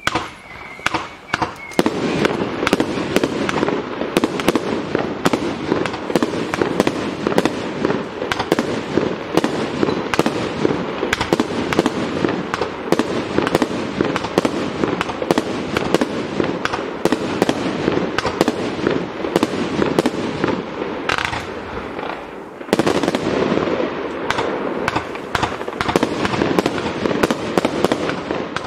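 221-shot consumer fireworks cake (M221 The Godfather) firing a rapid, continuous barrage of shots and aerial bursts. After a few separate shots in the first couple of seconds, the bangs come many times a second, ease off briefly about three quarters through, then pick up again.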